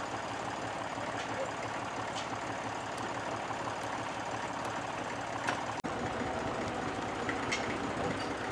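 Massey Ferguson 35 diesel tractor engine running steadily. A little under six seconds in, the sound drops out for an instant and picks up again.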